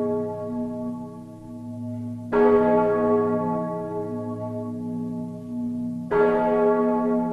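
A deep church bell tolling slowly in a dark ambient piece. It is struck twice, about two and a half and six seconds in, and each stroke rings on and fades over a steady low hum.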